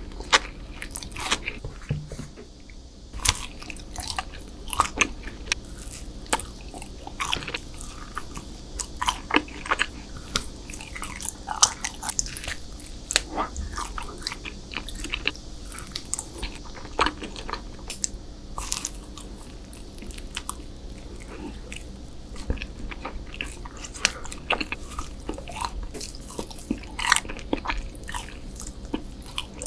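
Close-miked eating: a person biting into and chewing sweet desserts, with many sharp, irregular crackles and bites throughout.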